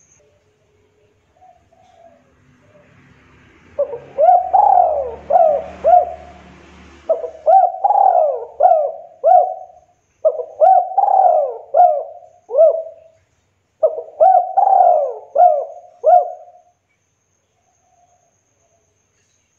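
Spotted dove (tekukur) cooing: four phrases of about four arching coo notes each, separated by short pauses, beginning a few seconds in and ending a few seconds before the close.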